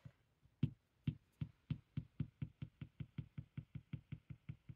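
Fingers tapping on a desktop: a long run of light, even knocks, starting slowly and quickening to about five or six a second.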